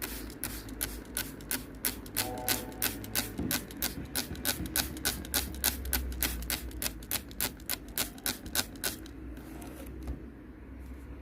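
A fast, even series of sharp clicks, about four a second, that stops about nine seconds in.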